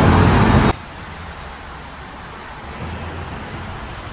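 Steady outdoor background noise of distant road traffic, an even low hum with no distinct events. It follows the loud end of a spoken word that cuts off abruptly less than a second in.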